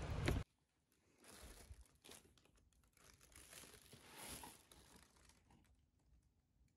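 Newborn kitten hissing: a few faint, breathy hisses over about four seconds, the loudest about four seconds in, a defensive hiss. A loud rush of noise cuts off abruptly half a second in.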